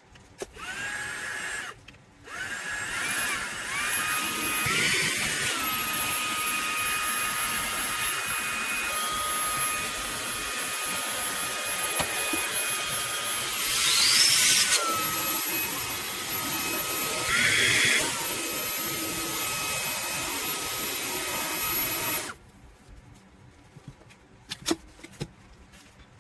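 Fanttik Slim V8 Apex cordless handheld vacuum switching on with a rising whine, cutting out briefly and starting again, then running with a steady high motor whine. The pitch shifts several times with louder rushes of air as the suction load changes, before it switches off abruptly near the end, followed by a few faint clicks.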